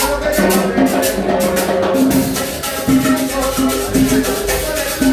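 Live cumbia music: a band playing a bass line and melody over a steady, evenly spaced percussion beat.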